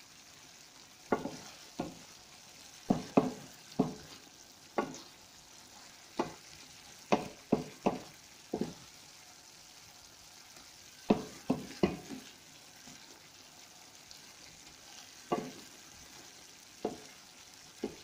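A spatula stirring chicken curry in a pan, knocking against the pan in irregular clusters of sharp clicks, over the faint steady bubbling of the simmering sauce.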